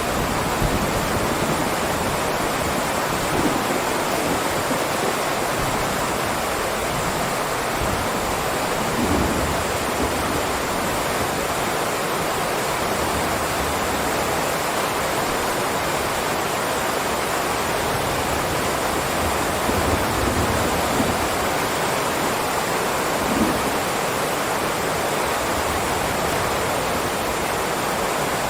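Heavy rain downpour: a steady, dense hiss of rainfall, with a few brief low swells.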